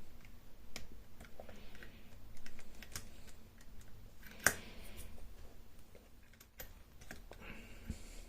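Lever lock being picked: small, irregular metal clicks and scrapes of two picks working the levers inside a Mauer Deposit 10 lever lock, with one sharper click about four and a half seconds in.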